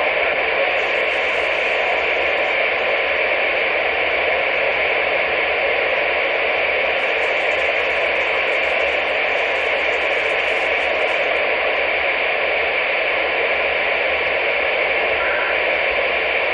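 CB radio receiver giving out steady loud static hiss with the squelch open, the band-limited rush of an empty channel between transmissions.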